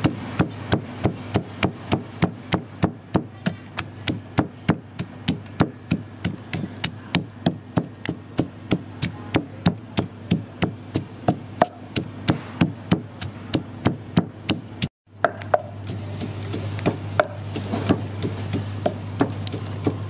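Wooden pestle pounding garlic cloves and red chilies in a wooden mortar: sharp, even wooden knocks about three a second. They stop abruptly about fifteen seconds in, and a steady low hum with a few faint clicks follows.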